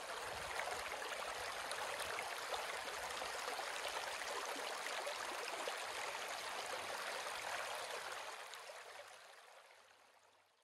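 Shallow creek water running over rocks and stones, a steady rushing sound that fades away over the last two seconds or so.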